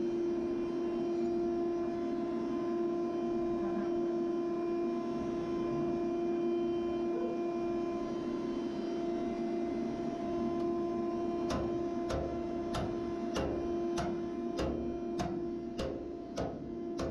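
A steady electrical-sounding hum. About two-thirds of the way in, evenly spaced sharp ticks join it, roughly three every two seconds.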